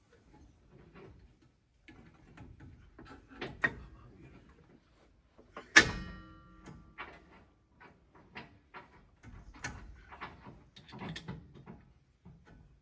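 Tools and metal suspension hardware knocking and clicking during work under a vehicle, with one loud metallic clank about six seconds in that rings briefly.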